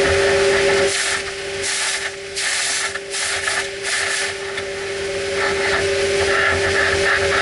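Compressed air hissing from a duct-cleaning air whip working through a sheet-metal duct, over a steady machine hum. The hiss drops and breaks up several times in the first half, then settles back to a steady rush.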